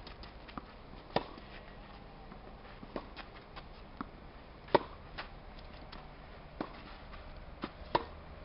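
Tennis rally on a clay court: the sharp pop of rackets striking the ball every few seconds, with fainter knocks of the ball bouncing between hits. The loudest pop comes near the end, from a forehand.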